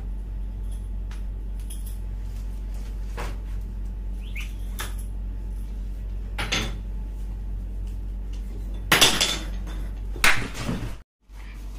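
Scuffle on a tiled floor over a steady low hum: a few light knocks, then two loud sudden clattering crashes about a second apart near the end, as a stick falls to the floor.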